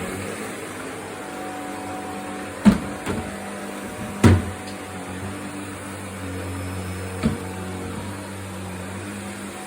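Vacuum cleaner running steadily with a constant motor hum, with three sharp knocks at about two and a half, four and seven seconds in.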